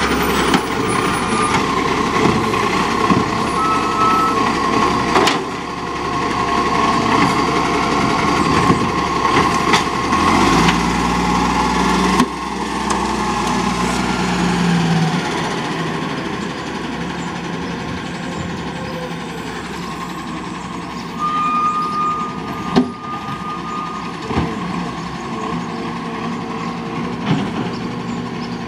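Diesel engine of an Acco side-loader garbage truck running as the truck pulls away and drives off, fading after about fifteen seconds as it recedes. Short high electronic beeps sound near the start and again about two thirds of the way through.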